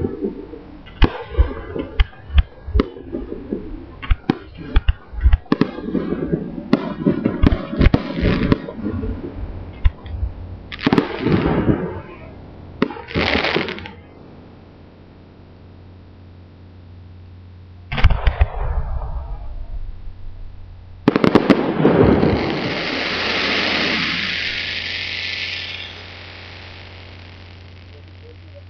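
Fireworks display: aerial shells bursting in fast, irregular volleys of sharp bangs for about the first twelve seconds. After a lull come two single bangs, the last followed by a hiss lasting about four seconds.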